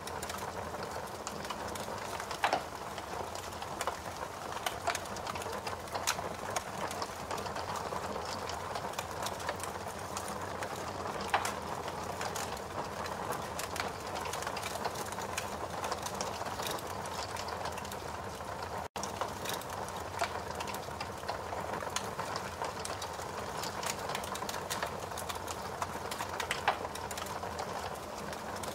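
Fire burning with a steady hiss, broken by scattered sharp crackles and pops at irregular intervals, and a momentary dropout about two-thirds through.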